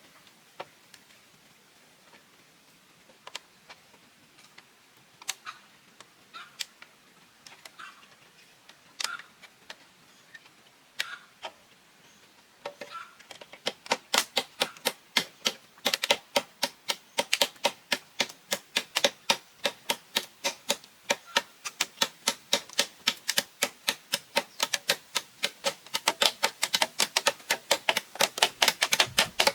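Scattered single sharp knocks, then from about halfway a fast, steady run of sharp knocks, about four a second.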